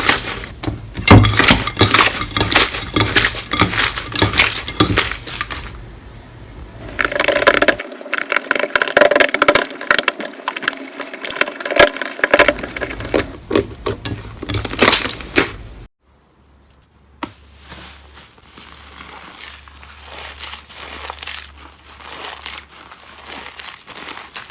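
Slime being squeezed, poked and pressed by hand, giving dense runs of crackling, popping clicks. The sound changes abruptly about seven seconds in and again near the middle, and is quieter and sparser in the last part.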